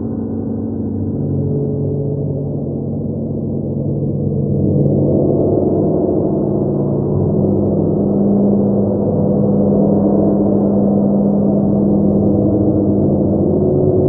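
Large handmade hammered gongs played continuously with felt-headed mallets: a dense wash of many overlapping ringing tones that swells louder about five seconds in and then holds.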